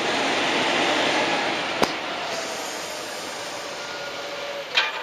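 Wind rushing over a body-worn camera's microphone during a free-fall drop from a tower, swelling in the first second and slowly easing off. A faint steady whine runs under it, and a single sharp click comes about two seconds in.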